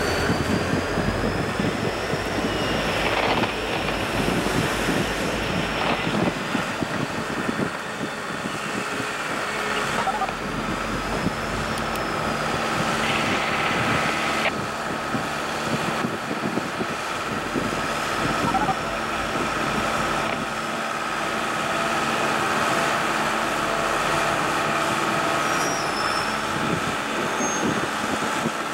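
Steady diesel running of a work train's rail-mounted tie crane as it travels along the cars handling ties, with a few knocks and clanks.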